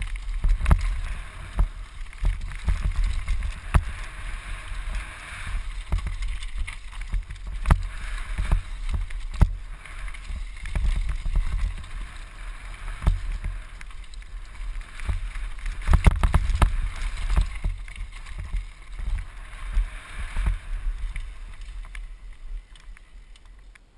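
Downhill mountain bike running fast over a rough forest dirt trail, heard from a helmet-mounted camera: wind rumbling on the microphone, a steady rolling hiss, and frequent sharp knocks and rattles as the bike hits bumps. It quietens near the end.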